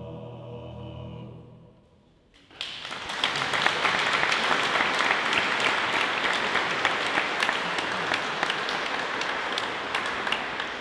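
A barbershop chorus's final sung chord, held and dying away about two seconds in. After a brief pause, audience applause starts and runs on, easing slightly near the end.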